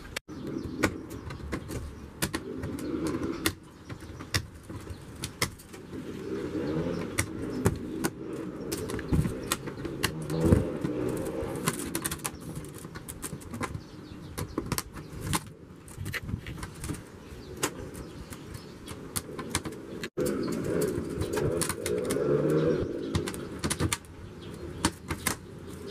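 Hands handling a multiwall polycarbonate roofing sheet and its protective plastic film, making scattered clicks and crackles, while a dove coos in several phrases.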